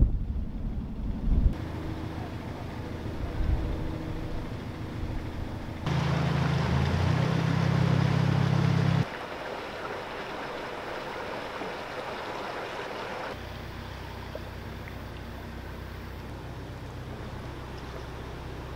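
Narrowboat diesel engine running steadily at low revs, with water and wind noise. It is louder for about three seconds a little over halfway through, then settles to a quieter, steady low hum.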